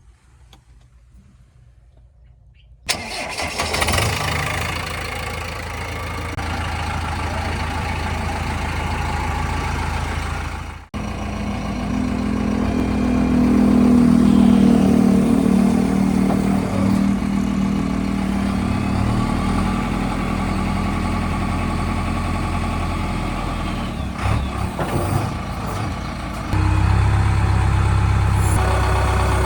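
A JCB backhoe loader's diesel engine starting about three seconds in, then running steadily. It gets louder again near the end.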